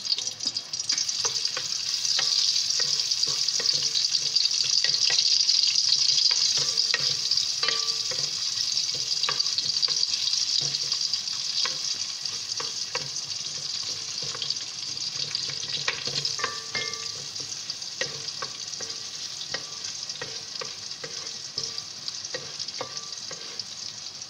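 Sliced onions sizzling in hot oil in a metal pot, stirred with a wooden spatula that knocks and scrapes against the pot again and again. The sizzle is strongest in the first several seconds, then slowly eases.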